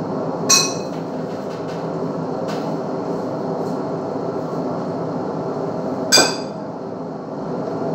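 A steady hum throughout, with two sharp clinks of utensils against plates or glassware, one about half a second in and the louder one about six seconds in.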